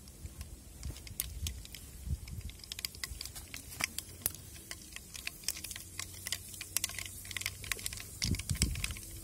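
Mustard seeds popping and spluttering in hot oil: irregular sharp crackles that come thicker after the first few seconds, over a low rumble.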